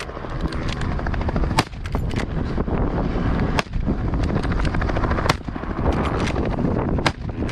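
Rifle fire: four loud shots spaced about two seconds apart, with smaller cracks between them, over a steady low rumble.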